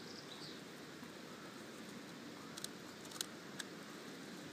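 English bulldog chewing on a wooden branch: a few short, sharp clicks of teeth cracking on the wood around the middle, over a faint steady background hiss.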